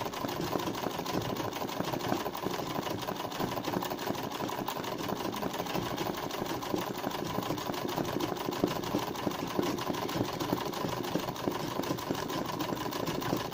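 Straight-stitch sewing machine running steadily in free-motion embroidery: a fast, even run of needle strokes without a pause.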